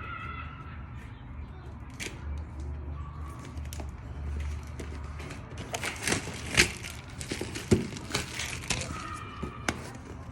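Handling noise: a run of sharp clicks, snaps and crinkling, thickest in the second half, over a low steady hum.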